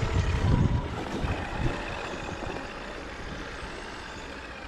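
Traxxas X-Maxx electric RC monster truck driving, its brushless motor giving a steady whine with a few low thumps in the first second or so; the sound grows gradually quieter.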